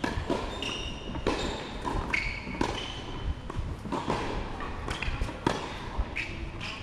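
Tennis balls being struck by rackets and bouncing on the court during rallies: a string of sharp pops and thuds, about one or two a second, with brief high squeaks between them.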